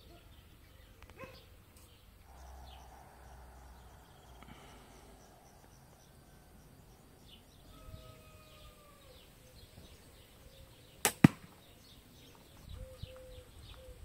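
A 50-pound homemade bow shot: one sharp, loud snap of the string about eleven seconds in, followed a split second later by a second, weaker smack as the arrow strikes the target. Faint bird chirps can be heard in the quiet before the shot.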